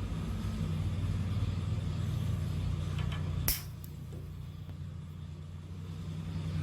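A small engine running steadily with a low hum. About three and a half seconds in there is a single sharp snip, typical of cutting the tail off a cable tie, after which the engine sound is quieter.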